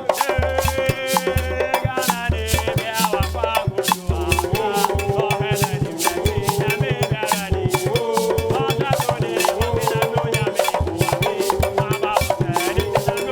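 Upbeat band music with fast, dense shaker percussion, a pulsing bass line and a wavering melody line.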